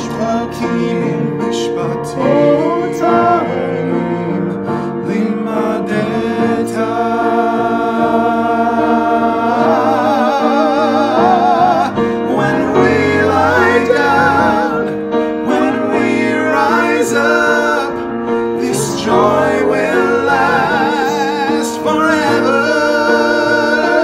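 Three men singing together with vibrato over a sustained instrumental accompaniment.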